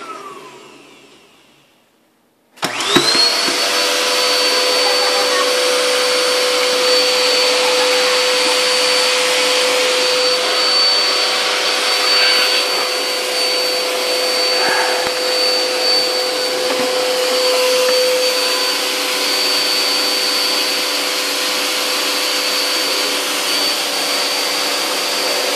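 Vacuum cleaner motor winding down, a short silence, then the vacuum switched back on about two and a half seconds in. Its whine rises quickly to a steady pitch and it runs steadily after that.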